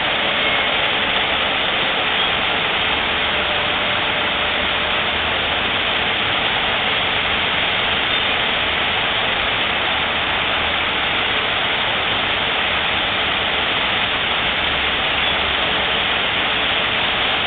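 Artificial garden waterfall pouring into a pond: a steady, unbroken rush of falling water.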